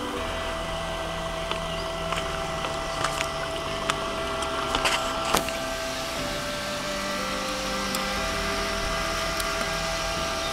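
A 12-volt PC cooling fan driving a foam model air boat, whirring steadily as a hum whose pitch shifts slightly about six seconds in and again about two seconds later. A few sharp clicks come in the middle.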